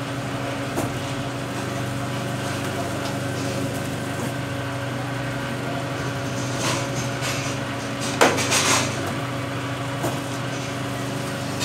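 Automatic hydraulic paper plate making machine running: a steady motor hum, with several short metallic clanks as the press cycles. The loudest clanks come about eight seconds in.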